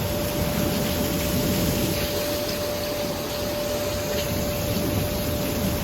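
Heavy rain pouring down in a steady, unbroken rush, with a thin steady tone running under it.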